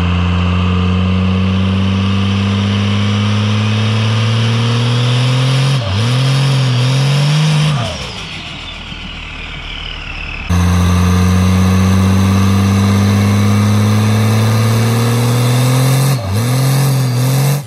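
Triple-turbo 12-valve Cummins 5.9 L inline-six diesel, with a hood-stack exhaust, revving hard. The pitch climbs slowly, dips and wavers about six seconds in, then falls away. After a cut about ten seconds in, it climbs again and dips near the end.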